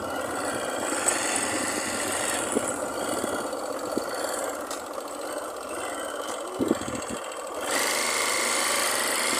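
Motorcycle engine running steadily while riding over a sandy dirt road, with wind and road noise; it gets louder about three-quarters of the way through.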